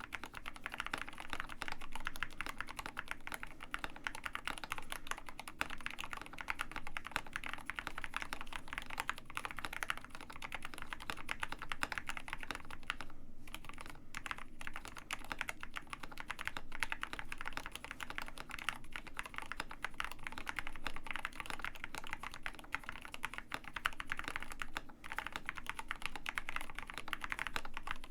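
Steady, fast typing on a KBD67 Lite R2 65% mechanical keyboard with Gateron Black Ink V2 linear switches: a continuous run of keystrokes, with short pauses about 13 and 25 seconds in.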